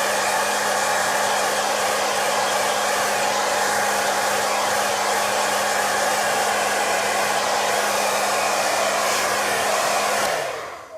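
Electric hair dryer blowing steadily, its motor humming under the rush of air. About ten seconds in it is switched off, and the motor's hum falls in pitch as it winds down to silence.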